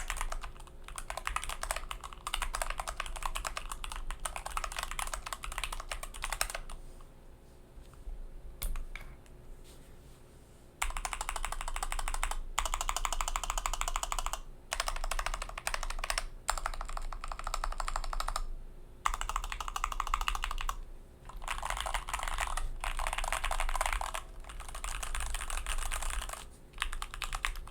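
Typing on an Idobao ID42 Abacus 40% aluminum-case keyboard, integrated-mount with no foam, fitted with Gateron KS8 Yellow linear switches and GMK Kaiju clone keycaps. Runs of fast keystrokes with short pauses between them, and a quieter stretch of lighter typing about a quarter of the way in.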